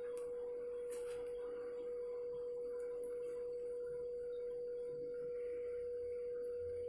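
Polaris PWK 1759CGL electric kettle heating water, a faint hiss under a steady high tone.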